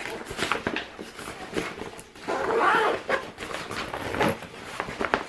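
Fabric backpack being handled: rustling cloth and the small clicks and knocks of its straps, pockets and fittings. About two seconds in comes a louder, noisier sound lasting under a second.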